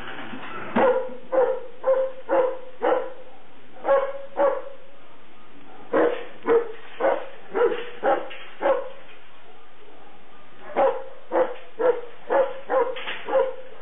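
A dog barking repeatedly: runs of short, sharp barks at about two a second, with brief pauses between the runs.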